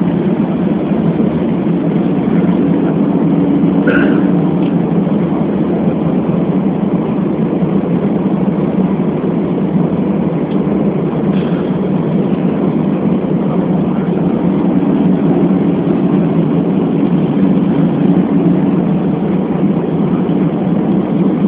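Steady cabin noise inside an Airbus A340-600 airliner descending on approach: a loud, low rumble of its four Rolls-Royce Trent 500 engines and airflow, with a faint hum that comes and goes.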